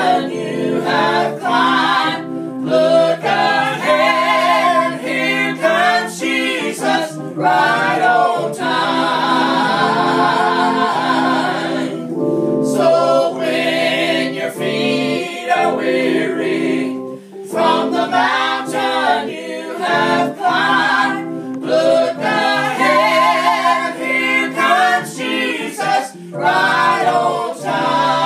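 Two women and a man singing a song together in harmony, accompanied by held chords on an electronic keyboard.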